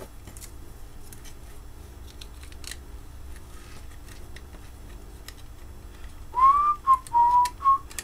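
A man whistling a short tune of a few gliding notes, starting about six seconds in. Before it there are only faint clicks of small plastic headphone parts being handled.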